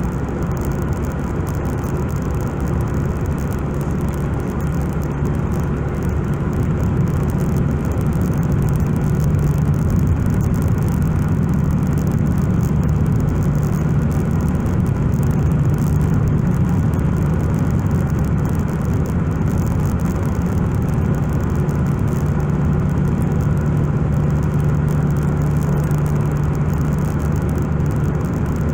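Steady road and engine noise heard from inside a car's cabin while cruising, a drone of tyres on asphalt with a low hum that grows a little stronger about a third of the way in.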